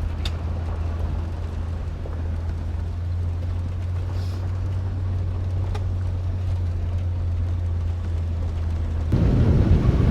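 Steady low drone of a vehicle driving, heard from inside the cabin. Near the end a louder, rougher rush of rumbling noise takes over.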